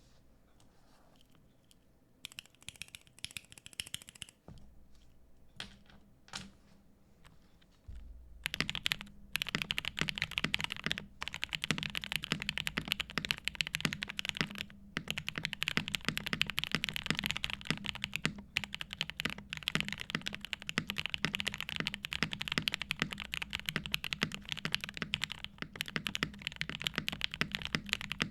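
NK87 mechanical keyboard being typed on: a few separate keystrokes at first, then fast continuous typing from about eight seconds in.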